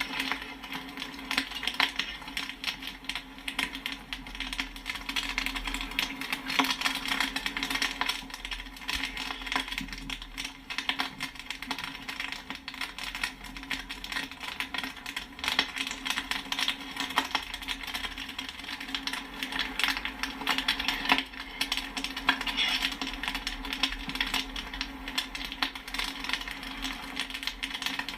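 Popcorn kernels popping in a dense, continuous stream of sharp little pops and pings, over a steady low hum.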